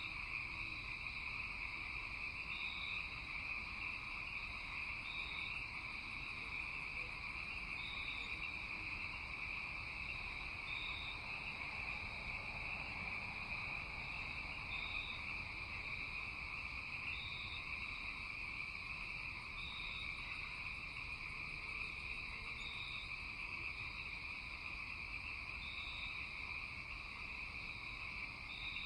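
Night chorus of crickets and frogs: a steady, continuous high insect trill, with a short high note repeating about every two to three seconds.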